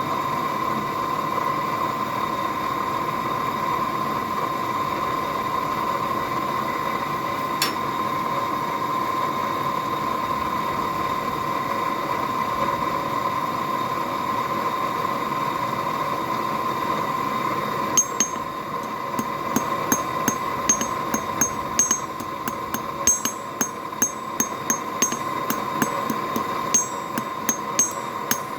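Steady rushing hum of the smithy's forge running. A single sharp strike about a quarter of the way in, then from about two-thirds of the way in, hammer blows on mild steel at the anvil, about one to two a second, each with a short ring.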